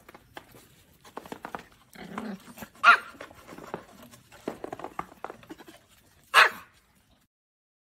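Pomeranians yapping and barking in a run of short, irregular calls, with two loud, sharp barks, one about three seconds in and one near the end.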